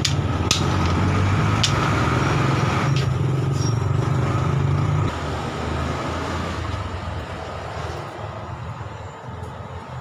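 A motor vehicle's engine running close by, a steady low drone that drops away suddenly about halfway through. Over it, a few sharp clicks in the first few seconds as plastic bottle-cap pieces are set down on a wooden dama board.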